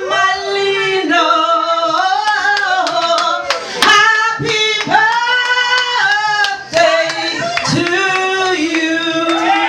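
Music with sung vocals, held melodic notes over short sharp percussive hits.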